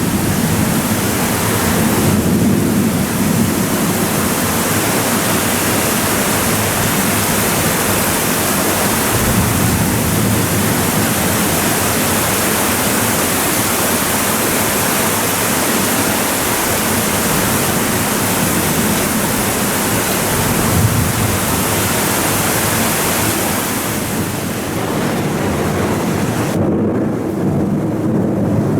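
Torrential rain driven by strong wind in a thunderstorm, a loud steady hiss with low rumbles swelling now and then. About 26 seconds in the high hiss drops away sharply.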